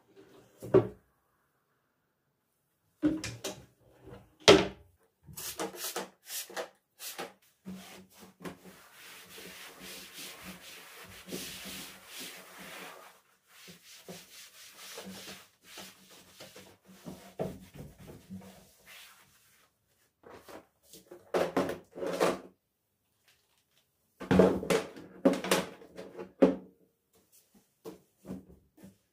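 Household handling sounds: objects knocked and set down, with a stretch of steady rubbing or scrubbing in the middle.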